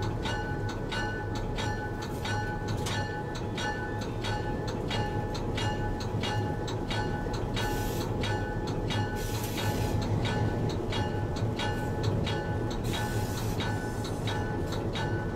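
Locomotive running along the track, heard from inside its cab: a steady low engine hum with regular clicking of the wheels over rail joints, about three clicks a second. Brief hissing rushes come about eight and thirteen seconds in.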